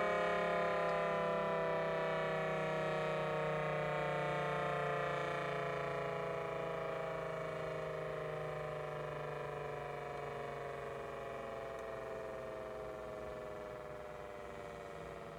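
Federal Signal Thunderbolt 1000TB outdoor warning siren winding down: its chord of tones slides slowly lower in pitch and fades steadily, the sign of the siren being shut off and coasting to a stop.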